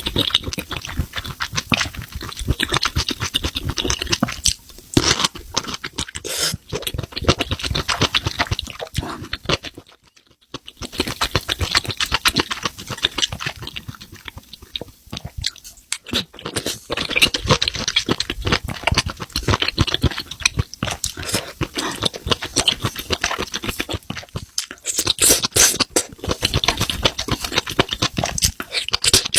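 Close-miked chewing of spicy mushrooms: dense, rapid crunching and mouth clicks, with a brief pause about a third of the way through.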